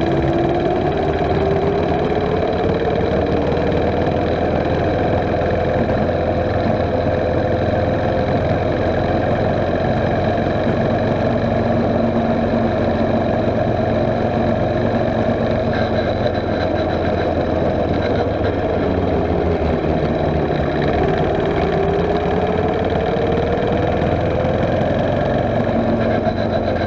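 Mini bike's small engine running steadily under way. Its pitch rises as it picks up speed just after the start and again near the end.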